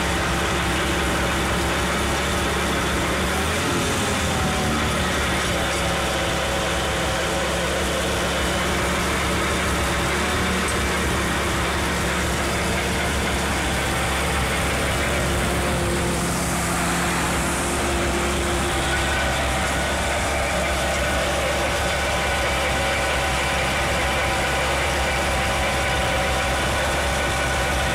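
Jeep's Willys F-head four-cylinder engine running steadily, driving a Jack & Heintz G32 DC aircraft generator through the transfer-case power take-off, with the generator spinning.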